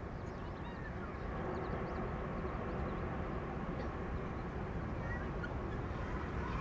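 Distant, steady rumble of a De Havilland Canada Dash 8-400's turboprop engines at takeoff power as it rolls down the runway, growing a little louder about a second and a half in. Birds call briefly over it.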